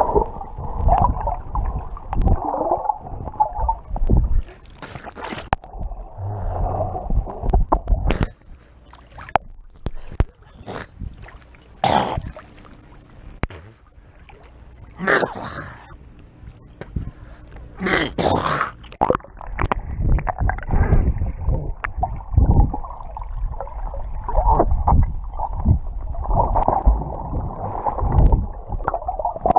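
Muffled underwater water noise, gurgling and rushing against a camera held below the surface. About a third of the way in, sharp splashes and sloshing come as the camera breaks the surface, then the sound turns muffled again once it goes back under.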